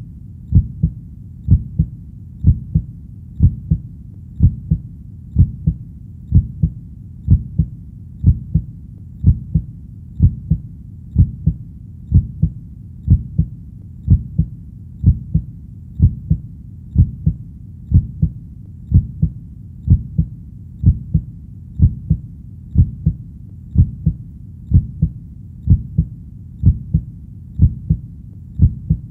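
Heartbeat, each beat a double lub-dub thump, steady at about one beat a second, over a constant low rumble.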